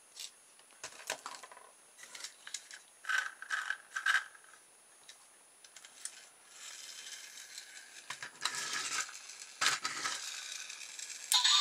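Plastic toy motorbike clicking and knocking as it is handled, then its friction motor whirring with a gear rattle as it is pushed along the desk, surging twice. Near the end a loud electronic tune starts up.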